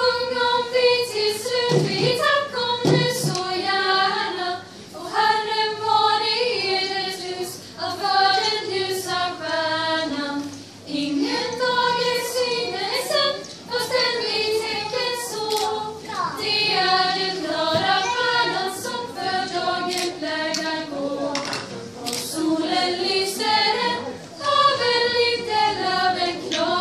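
A small choir of young women in Lucia gowns singing together unaccompanied, in slow sustained phrases with short breaths between them.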